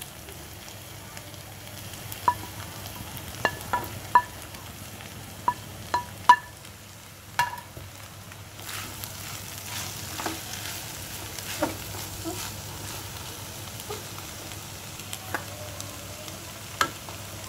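A wooden spatula stirring dry mackerel, onions and spring onions in a nonstick frying pan, clacking sharply against the pan a dozen or so times over a low sizzle. The sizzle grows fuller about halfway through, as the spring onions are worked in.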